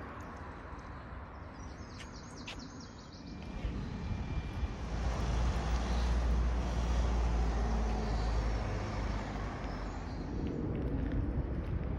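Road traffic in a town: a low rumble of passing vehicles that swells about four seconds in and eases a little near the end.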